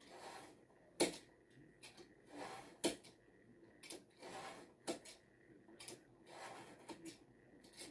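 Chickens scratching and pecking in dry coop litter: short scratchy rustles about every two seconds, each followed by a sharp click.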